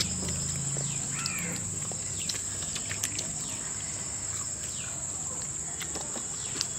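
Rural outdoor ambience: a steady high-pitched insect drone, with scattered short bird calls and chirps over it.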